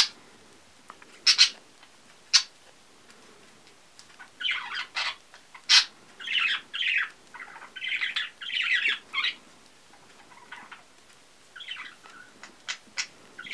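Two 3 mm metal knitting needles clicking and scraping against each other as stitches are knitted: scattered sharp clicks, with a run of short scratchy rasps in the middle.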